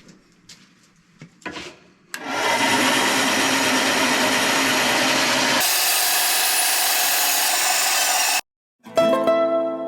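A power tool cutting or sanding olivewood: a few faint handling clicks, then about two seconds in a loud steady grinding noise over a motor hum, which changes abruptly midway. It cuts off suddenly, and plucked-string music starts near the end.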